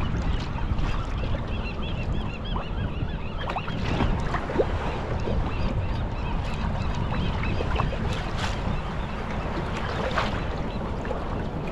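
Wind buffeting the microphone and sea water sloshing around a kayak, with birds calling in a quick run of short, repeated high notes through the first half.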